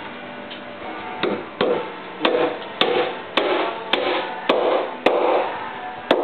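Hammer blows on a wooden header beam, about nine sharp knocks roughly two a second, starting about a second in.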